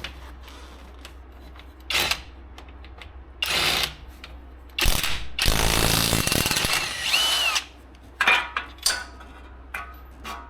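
Power tool run in bursts on fasteners during a wheel bearing job: two short bursts, then one longer run of about three seconds near the middle, then a couple more short bursts.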